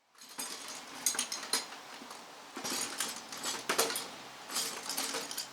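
Small metal tools or parts clinking and rattling together in several short clusters of clicks.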